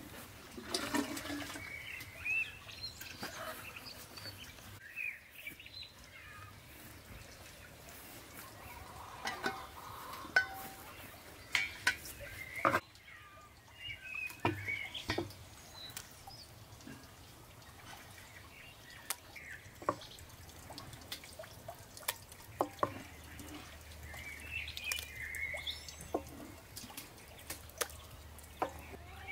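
Wooden spoon knocking and scraping inside a wooden butter churn as fresh, wet butter is scooped out through its side hole: scattered sharp clacks among wet, sloshing sounds. Birds chirp briefly now and then.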